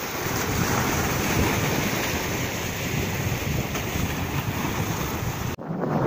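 Strong wind buffeting the microphone over rough sea. The sound drops out for a moment near the end.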